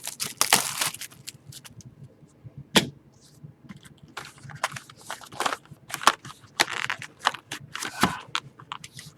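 Plastic wrap and cardboard of a sealed trading-card hobby box being torn and opened: an irregular run of sharp crackles and snaps, loudest about half a second in, near three seconds and near eight seconds.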